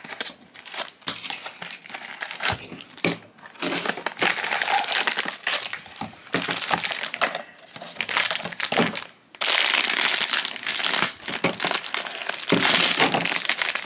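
Crinkling of a foil blind-box pouch and its cardboard box being handled and opened, in irregular bursts that grow denser and louder in the last few seconds.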